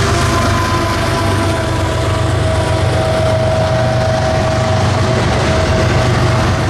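A double-stack intermodal freight train rolls past. The container cars make a steady rumble on the rails, with a steady high-pitched whine running through it that is strongest around the middle.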